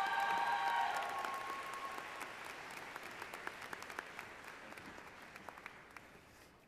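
Audience applauding, loudest at first and then gradually dying away. A few steady high tones are held over the clapping for about the first second and a half.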